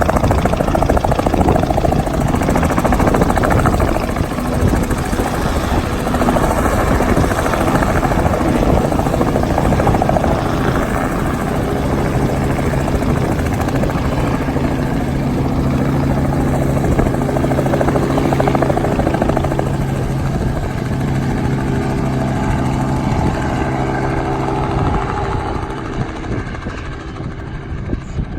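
Tour helicopter running close by: fast rotor chop, joined about twelve seconds in by a steady low hum, then fading over the last couple of seconds.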